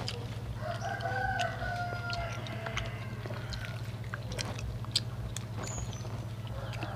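A rooster crowing once, a drawn-out call of about a second and a half starting about half a second in, over a steady low hum. Sharp clicks of metal tongs come and go throughout.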